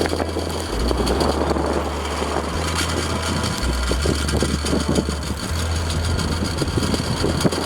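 Strong gusty wind buffeting the microphone, over a steady low hum.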